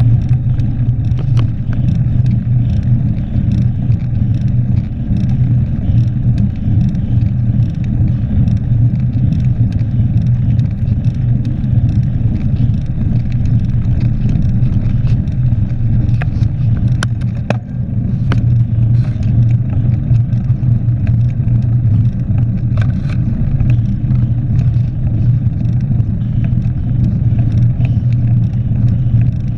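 Mountain bike rolling fast over block paving, heard from a handlebar-mounted action camera: a steady low rumble of tyres and wind on the microphone, with frequent small clicks and rattles from the bike.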